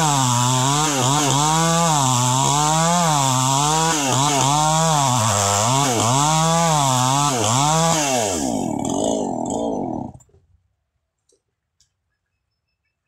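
Two-stroke chainsaw cutting through a palm log, its engine pitch rising and falling about once a second as it bogs under load. About eight seconds in the engine winds down and stops, followed by near silence with a couple of faint ticks.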